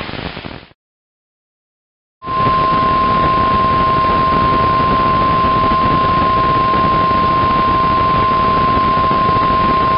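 Weatheradio Canada 1050 Hz warning alarm tone: a single steady, loud beep over radio static, starting suddenly about two seconds in after a short silence. It signals that a weather warning message follows.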